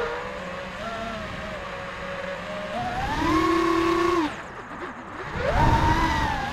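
Brushless motors of an Armattan Marmotte 5-inch FPV quadcopter (Xing 2450 kV motors on 4S) whining with the throttle: steady at first, pitch rising sharply about three seconds in and held, dropping back and quieter about a second later, then rising again about five and a half seconds in. A low rush of wind runs under the whine, heaviest during the second burst.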